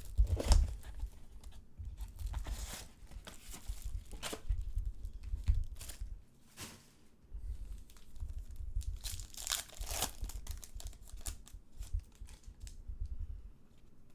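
Trading-card pack wrappers being torn open and crinkled by hand, in repeated irregular rustles, with low thuds from handling on the desk.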